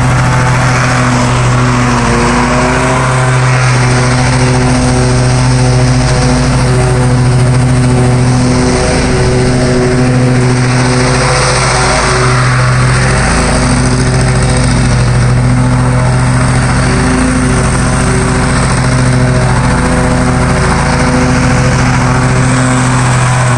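Stand-on lawn mower's engine running steadily while mowing, its pitch shifting slightly now and then.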